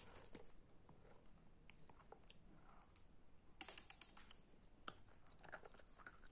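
Near silence with a few soft clicks and taps, including a short cluster of them about three and a half seconds in.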